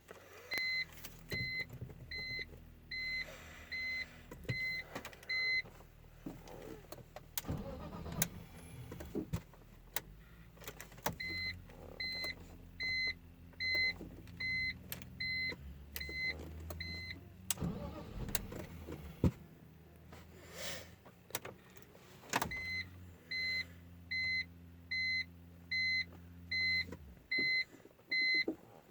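BMW E46 that will not start: three runs of short electronic beeps, about one and a half a second, each run lasting five or six seconds over a steady low hum, with sharp clicks in between.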